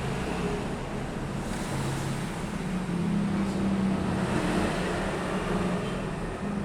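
A motor vehicle engine running steadily over a wash of background noise, its low hum growing stronger about halfway through.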